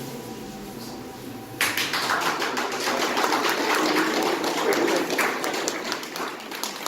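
Crowd applauding after a live tango number: after a short lull, many hands start clapping about a second and a half in, go on for about four seconds and taper off.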